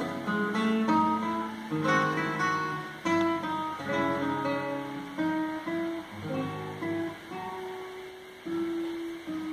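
Classical guitar and grand piano playing together live: a flowing line of plucked notes and chords that grows quieter toward the end.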